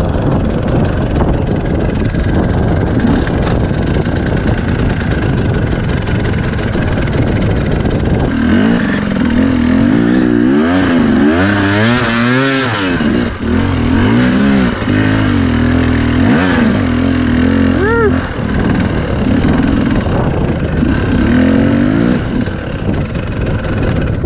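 KTM 250 EXC dirt bike engine revving up and down as it is ridden, the pitch rising and falling again and again, most strongly through the middle of the stretch and easing off near the end.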